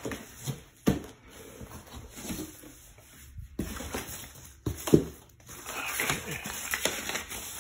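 Cardboard packing being handled in an opened shipping box, with two sharp knocks, about a second in and about five seconds in, then paper rustling as the instruction sheet is lifted out.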